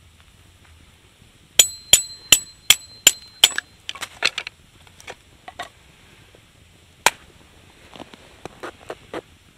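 Kindling being split with a knife: six quick strikes with a metallic ring, about three a second, then lighter cracks and snaps of wood.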